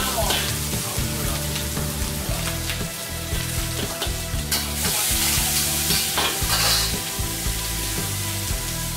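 Food sizzling in a hot wok while a metal ladle stirs and scrapes it, with surges of louder hissing about four and a half and six and a half seconds in.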